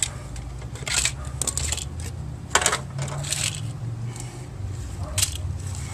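Small metal parts of a garage door opener clinking and clattering as they are handled and set down during dismantling: several sharp metallic clinks at uneven intervals.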